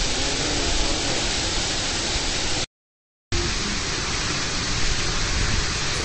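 Steady rush of a tall waterfall pouring into its plunge pool. The sound drops out completely for about half a second just before halfway, then comes back unchanged.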